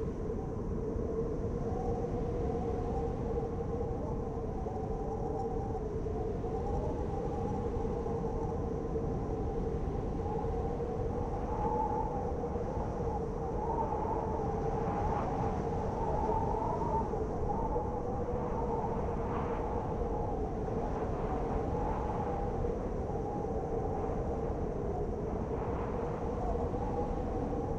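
Blizzard wind howling: a steady rushing noise carrying a held low moan and a higher tone that wavers up and down.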